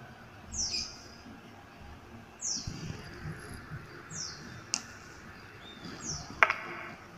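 A bird's short, high chirp, falling in pitch, repeated four times about two seconds apart. Low handling bumps sound in the middle, and a sharp click comes near the end.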